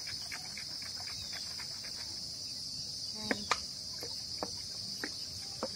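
Steady high-pitched drone of insects shrilling in the garden. Over it come a few short clicks from the plastic hand-pump sprayer being handled, the loudest two a little past halfway.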